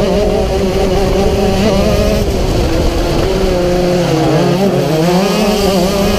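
Racing kart engine running at high revs, heard from onboard the kart, its pitch wavering through the corners and dipping briefly around four to five seconds in before climbing again.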